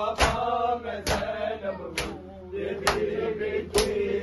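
Group of men doing matam, beating their chests with open hands in unison: five sharp slaps at an even beat of about one a second. A chanted Urdu nauha sung by male voices carries on between the slaps.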